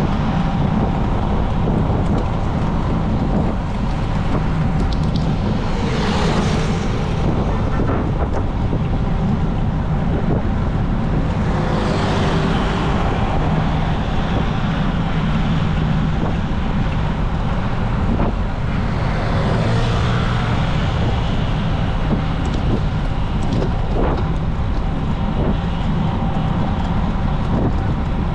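Steady wind and road rumble on a moving bicycle camera's microphone, with road traffic alongside. Motor vehicles swell past three times.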